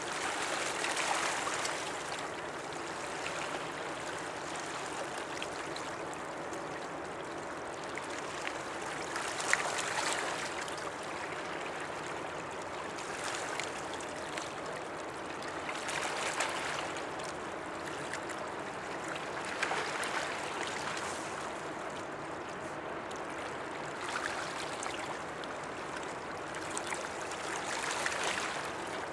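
Water washing and lapping at the river's edge: a steady hiss that swells every few seconds.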